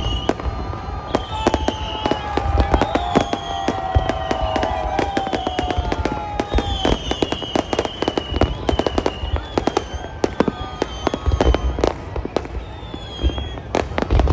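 Fireworks display: a dense, irregular barrage of bangs and crackling bursts over a deep rumble. Several high, slightly falling tones sound over the bangs every second or two.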